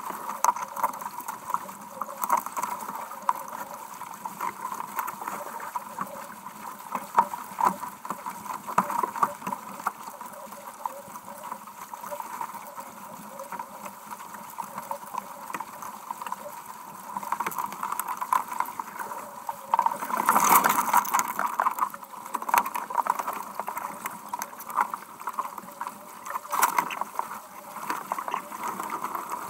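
Wind buffeting the microphone and water rushing and splashing along the hull of a small sailboat heeled over in strong wind and waves. A loud gust or burst of spray comes about twenty seconds in, and a shorter one a few seconds before the end.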